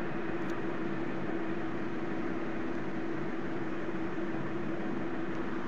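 Steady background hum and hiss with one constant low tone, unchanging throughout, like a fan or other running machine.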